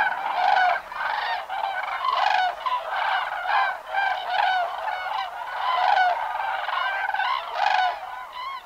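A flock of common cranes calling, many loud honking calls overlapping one another without a break, fading out near the end.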